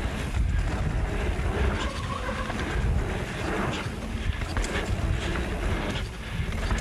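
Mountain bike riding fast down a dirt trail: a continuous rumble of wind buffeting the microphone and tyres on packed dirt, with scattered short rattles and knocks from the bike over the bumps.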